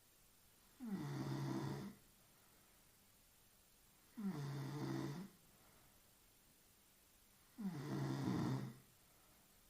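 A sleeping woman snoring: three snores, each about a second long, coming roughly every three and a half seconds, with quiet breathing between.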